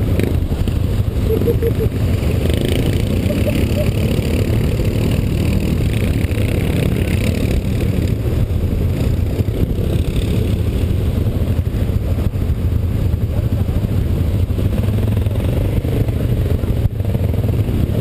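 ATV engines running steadily at low revs close by, a constant low rumble.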